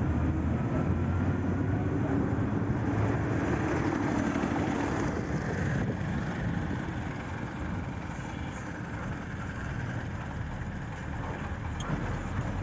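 Motor vehicle engine rumbling as traffic passes, with a faint rising engine note in the first few seconds and the sound easing off a little after about six seconds.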